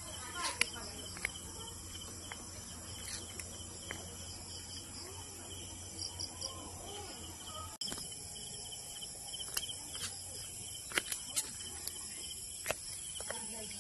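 Crickets chirring steadily in high-pitched continuous tones, with a few sharp clicks scattered through.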